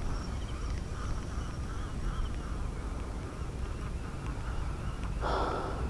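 Faint animal calls repeat against a steady low rumble. A brief rush of noise comes near the end.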